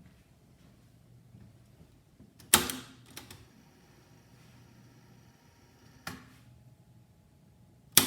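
Marantz SD3000 cassette deck's tape transport being operated: a sharp mechanical clunk about two and a half seconds in, a couple of lighter clicks, then a faint steady motor whir for about three seconds that stops with a click, and another sharp clunk near the end.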